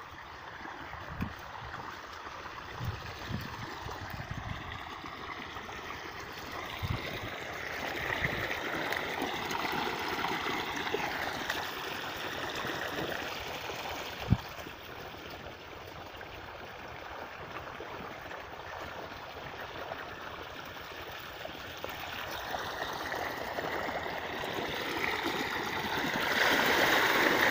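Irrigation water running and gurgling through a field channel. It grows steadily louder and jumps up near the end as the water itself is reached. A few dull knocks sound in the first seconds, with a sharper one about fourteen seconds in.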